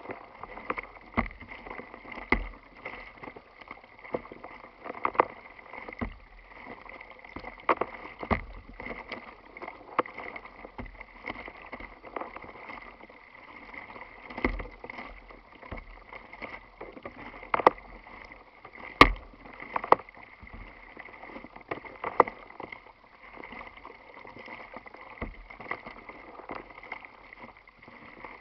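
Choppy water slapping and splashing against a plastic kayak's hull as it is paddled, with irregular sharp slaps every second or two over a steady wash.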